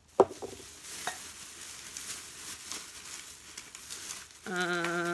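Shopping bag being rummaged through: a steady crinkling rustle with one sharp knock just after the start. Near the end a woman's voice gives a short held hum.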